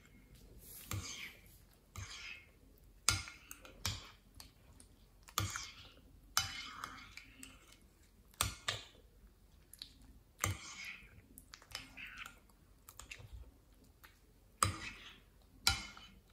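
Thick, glossy slime mixed with foam beads being stirred and pulled with a metal spoon in a glass bowl. Wet squelching and sticky swishes, broken by sharp clicks and pops every second or two.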